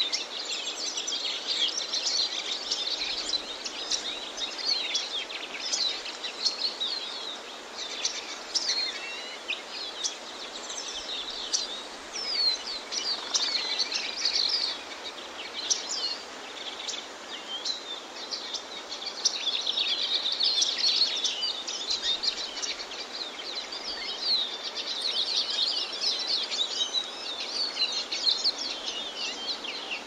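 Birds chirping: many short, high chirps and trills overlapping over a steady soft hiss, busiest about two-thirds of the way through.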